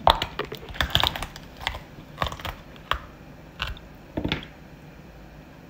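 Raw snow crab's shell cracking and snapping in a run of irregular sharp clicks as the top shell is pried away from the body, stopping a little before the end.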